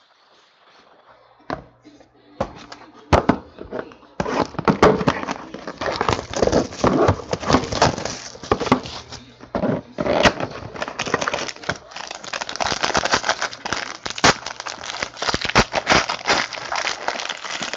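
Plastic shrink-wrap being torn and crumpled off a sealed trading-card box: dense, continuous crinkling and crackling from about four seconds in, after a few separate clicks and knocks.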